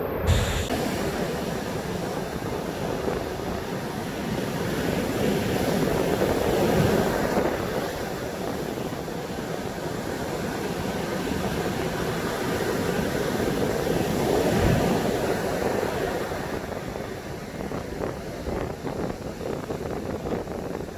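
High surf breaking continuously on a beach in strong wind, swelling louder twice as bigger waves come in, with the wind buffeting the microphone in low rumbles.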